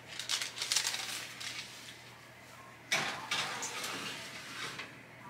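Metal baking tray and oven rack clattering and scraping as a tray of cookies goes into the oven, with one louder knock about three seconds in.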